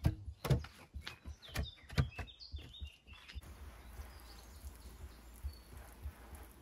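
A quick run of sharp knocks and clicks with a few short bird chirps among them. After about three seconds this gives way to a steady low rumble with a few soft thumps.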